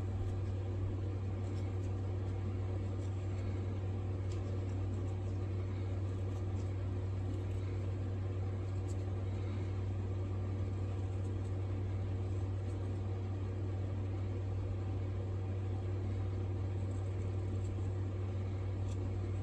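Steady low hum over faint background noise, with a few faint, scattered scraping ticks from a Mora knife shaving a small wooden handle.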